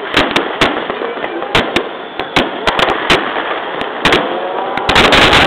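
Aerial fireworks shells bursting in an irregular string of sharp bangs, then a rapid volley of many bangs near the end.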